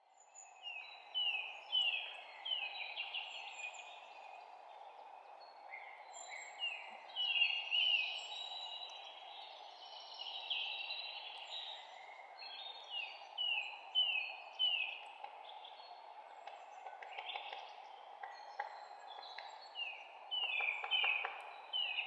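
Several songbirds chirping in a spring forest, with many short chirps falling in pitch in quick runs, over a steady low hiss of background noise.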